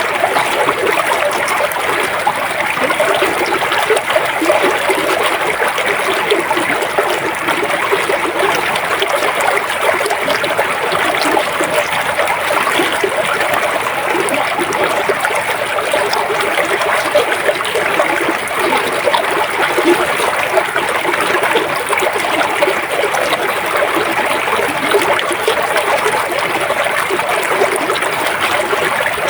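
Shallow river flowing over stones, a steady babbling and trickling of water with no let-up.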